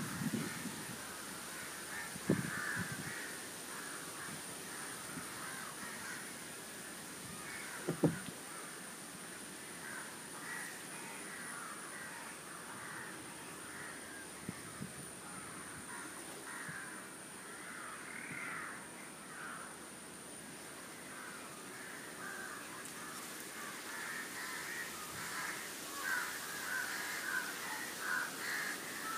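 Crows cawing repeatedly among other bird calls, with a steady high-pitched ringing behind them. A few dull low thumps stand out, right at the start, about two seconds in and about eight seconds in.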